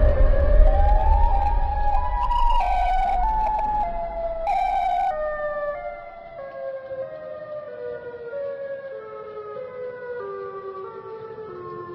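A siren wailing: its pitch climbs for the first two seconds, then steps downward as it fades. Under it, the deep rumble of a heavy boom dies away over the first half.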